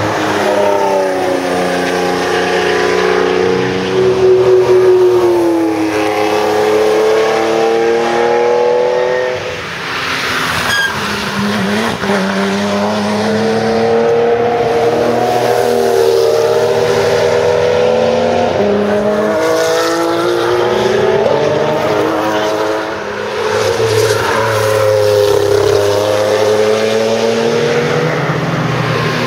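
Porsche racing cars at speed on a circuit, engines rising in pitch as they accelerate and falling away on lift-off, over and over, with a marked dip about ten seconds in and again near twenty-three seconds.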